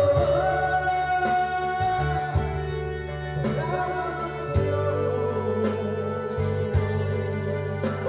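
A man singing into a handheld microphone over amplified backing music, holding long notes over a steady bass line.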